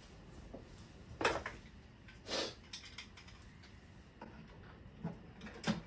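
A few light clicks and scrapes of plastic cistern parts being handled at a Geberit concealed cistern's service opening. Two longer scrapes come in the first half, then a few short clicks.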